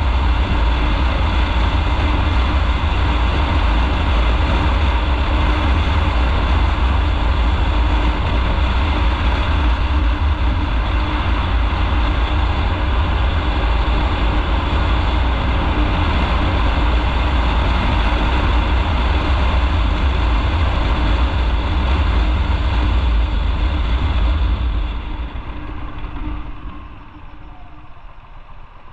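Motorcycle under way, its engine and road noise mixed with heavy wind rumble on the microphone. Near the end the noise falls away as the bike slows to a quieter idle.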